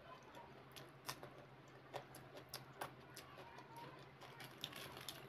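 Faint eating sounds: scattered sharp little clicks and crackles from chewing and tearing fried bhatura bread, over a low steady hum.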